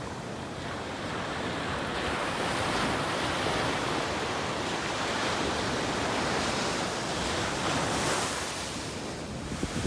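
Rough Atlantic surf breaking and washing onto the beach, a steady rushing that swells and eases slowly, with some wind on the microphone.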